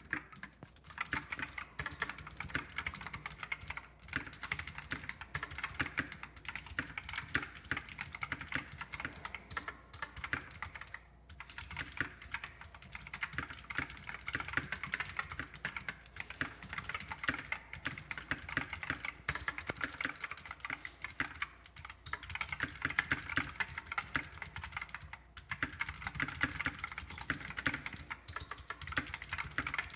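Fast, continuous typing on an RK100 mechanical keyboard with clicky Kailh Pro Light Green switches and foam added inside the case, a dense run of key clicks with a few brief pauses.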